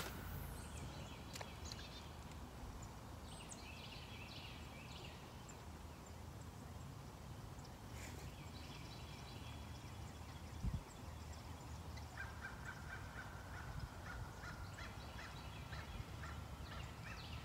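Distant birds calling: runs of rapid, chattering repeated notes about three seconds in and again from about twelve seconds, over a low steady hum. A single dull knock comes near eleven seconds.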